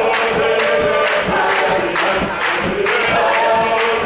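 Congregation singing together, a hymn or chant, with hand claps keeping a steady beat about twice a second.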